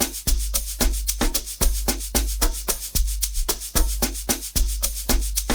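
Amapiano drum loop playing: a deep bass hit about every three-quarters of a second under a busy pattern of shakers and sharp percussion hits.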